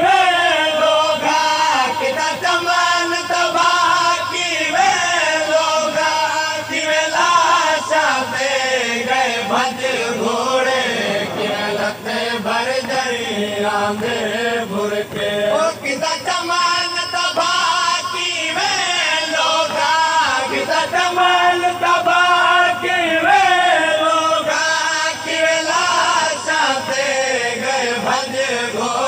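Male voices chanting a noha, a Shia lament, unaccompanied, in long held and sliding melodic lines.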